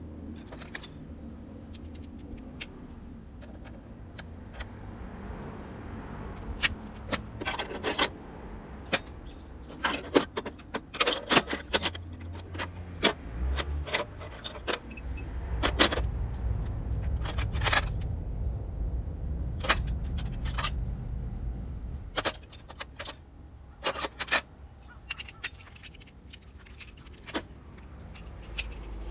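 Metal tools and parts clinking and clattering in many separate sharp clicks, over a low rumble that swells in the middle and fades again.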